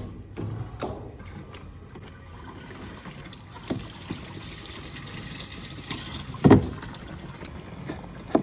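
Engine oil being poured through a pipe into a tractor engine's oil filler neck: a faint steady trickle, with handling clicks and a louder knock about six and a half seconds in.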